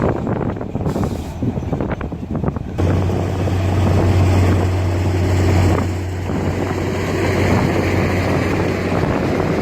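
Heavy earthmoving machine's diesel engine running under load, its low hum growing louder and heavier about three seconds in and easing briefly about six seconds in.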